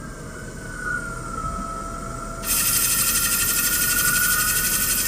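CNC lathe machining stainless steel: a high, steady whine that wavers slightly in pitch. About two and a half seconds in, a loud hiss starts suddenly on top of it.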